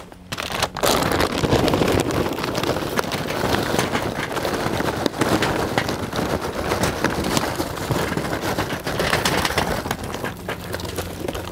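Charcoal briquettes poured from a paper bag onto burning coals on the metal charcoal grid of a La Caja China roasting box: a continuous clatter of many small knocks that starts about a second in and thins a little near the end.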